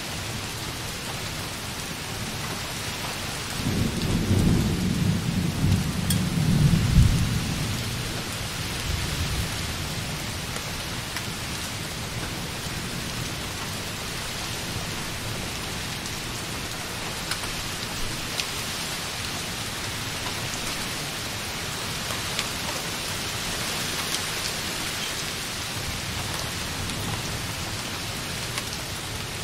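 Light rain falling softly on a window glass as a steady hiss. A roll of distant thunder rumbles from about four seconds in, loudest around seven seconds, and dies away by about nine seconds.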